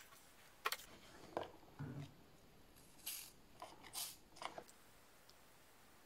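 Scattered short scrapes, taps and clicks as a wooden toothpick and cotton swab are worked around the buttons of a plastic TV remote, with a brief handling rustle about two seconds in.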